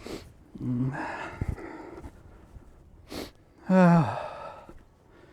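A man's voice making short wordless vocal sounds while working: a brief grunt about a second in, then a loud groan falling in pitch near four seconds in. A short hiss comes just before the groan.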